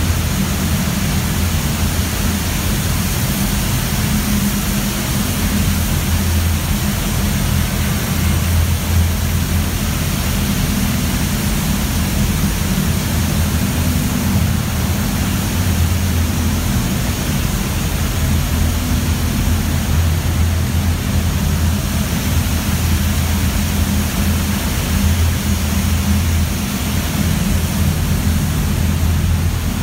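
Steady loud roar of copper smelter furnace-hall machinery: a constant low hum under an even hiss, with no break.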